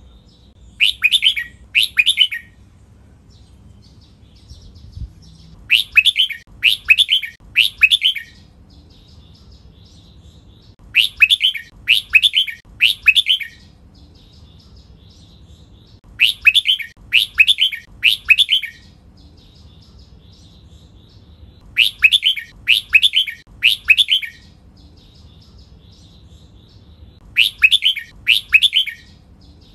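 Red-whiskered bulbul singing loud, clear whistled phrases that drop in pitch. They come in quick runs of two or three, about every five seconds, with faint chirps in between. This is the doubled two-to-three-phrase song that bulbul keepers count.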